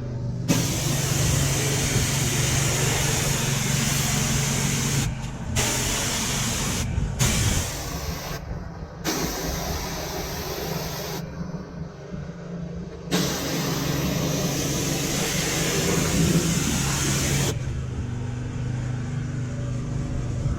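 Pressure washer spraying: a loud, steady hiss of water that cuts out briefly several times, with a low steady hum from the washer's motor and pump underneath.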